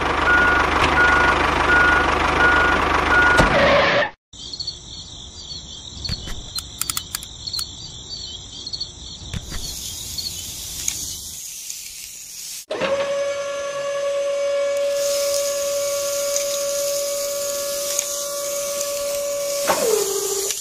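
A vehicle sound with a regular reversing beep for about four seconds. Then a quieter stretch of high chirping with scattered soft clicks. From about two-thirds of the way in, a steady electric whine from the miniature tipper trailer's lifting mechanism, dropping in pitch near the end.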